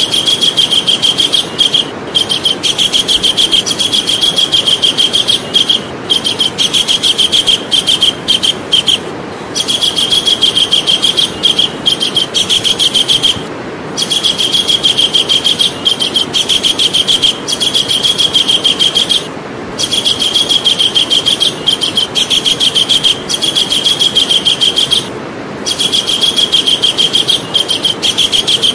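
Javan kingfisher calling in long, rapid trills of repeated high notes, each trill lasting several seconds with brief breaks between, over a steady background noise.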